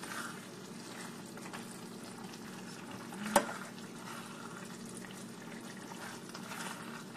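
Thick vegetable korma simmering in a nonstick frying pan while a silicone spatula stirs and scoops it, over a steady low hum. One sharp knock comes a little over three seconds in.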